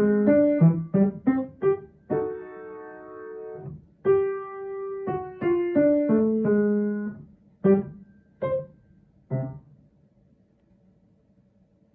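Solo piano playing the close of a children's piece: quick runs of notes, a held chord, another short phrase, then three short detached notes that end it, the last one fading away.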